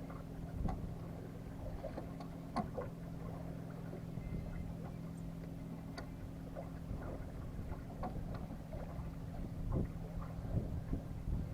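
Small sailboat underway: rumbling low noise of wind and water with a steady low hum, and scattered light knocks and clicks.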